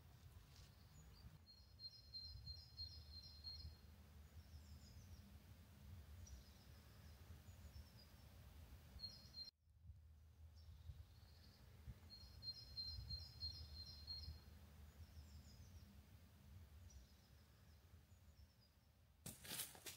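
Faint birdsong over a low background rumble: a songbird repeats a phrase of quick high notes about two seconds long, twice, about ten seconds apart. Footsteps start near the end.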